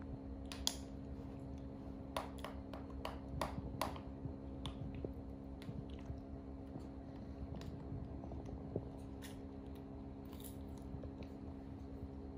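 Small plastic cosmetic tubes and caps being handled: scattered light clicks and taps, most of them in the first four seconds and a few more near the end, over a steady low hum.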